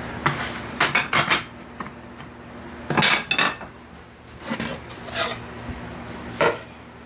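Hard objects clattering and knocking as they are handled and set down, in about six short separate bursts.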